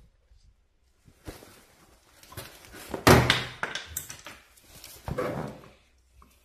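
Rustling and knocking of hands handling a tool at the tire, the loudest a heavy thump about three seconds in, with another knock near the end.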